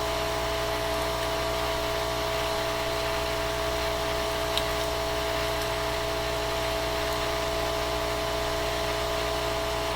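Steady whine and hiss of a small electric motor running, holding one pitch throughout, with a faint click about four and a half seconds in.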